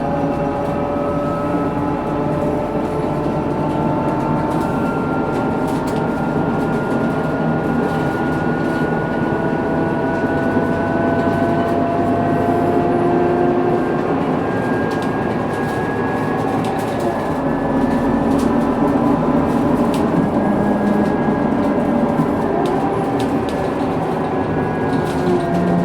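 Scania K230UB city bus under way, its rear axle differential giving a distinct gear whine in several tones that rise slowly in pitch as the bus gathers speed, shifting a few times later on, over the low drone of the diesel engine and driveline.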